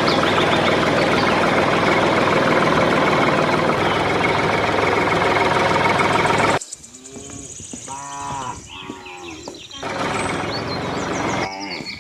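An engine running steadily, cutting off abruptly partway through, followed by a cow mooing, with long calls that rise and fall in pitch.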